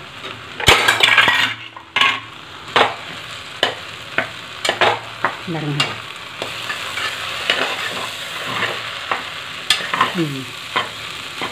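Noodles and vegetables being stir-fried in a hot pan: a steady sizzle, with the spatula scraping and knocking against the pan roughly once a second as the sauce is mixed through.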